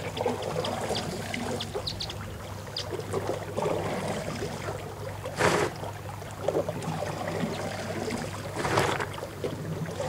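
Elephants drinking with their trunks: water trickling and splashing, with two short, louder gushes about five and a half and nine seconds in.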